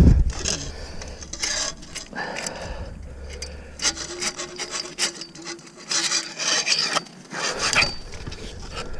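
Irregular scraping and rubbing of a wire-mesh cage trap and a metal catch pole being shifted against each other while a large trapped animal is moved into the trap, with a knock at the start.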